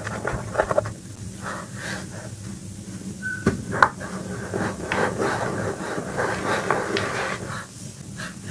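Hands crushing and crumbling soft blocks of Reform gym chalk into a bed of chalk powder: dry crunching and sifting, with scattered sharp crackles and a louder crack about four seconds in.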